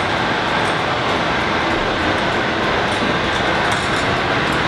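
Steady rushing background noise, with faint light clicks of a washer and nut being fitted by hand onto a steel U-bolt.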